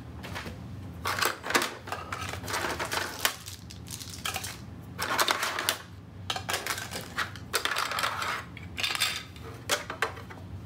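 Hard plastic cart parts being handled: shelf panels and small plastic fittings knocking and rattling together in irregular clusters of sharp clicks and clatters.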